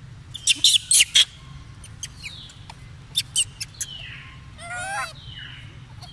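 Loud sharp crunching clicks as a macaque bites into a crisp fruit: a quick cluster in the first second and four more about three seconds in. Short falling whistle-like calls and one brief wavering squeal come in between.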